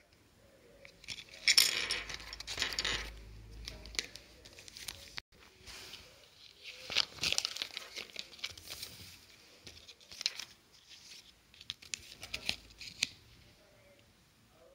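Crinkling and rustling of the paper leaflet and wrapping from a Kinder Joy toy capsule being unpacked by hand, in two longer bursts about a second and a half in and again around seven seconds in, with scattered small clicks of the plastic capsule and toy parts.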